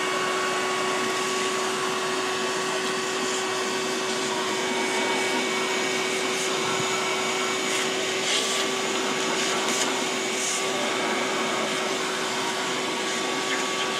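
Vacuum cleaner running steadily, a steady whooshing hum with a constant tone, its hose nozzle sucking soot out of a model steam locomotive's smoke box.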